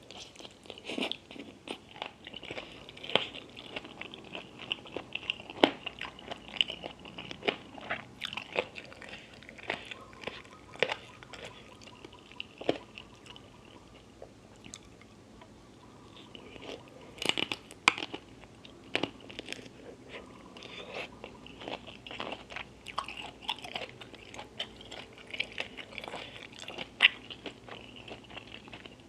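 Close-miked eating of seafood and chicken feet in spicy sauce: biting and chewing with many sharp, wet crunches. The crunches come thickest and loudest a little past halfway and again near the end.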